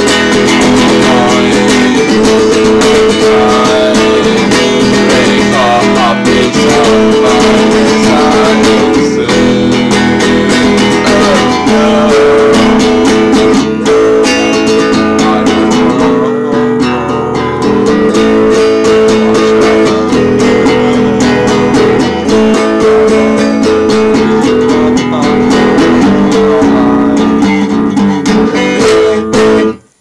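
Guitar strummed steadily and loudly in a continuous rhythm, stopping abruptly near the end.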